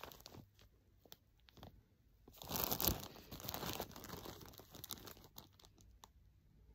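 Plastic wrapping around skeins of yarn crinkling and rustling as they are handled, loudest in a burst about two and a half seconds in, then scattered small crackles.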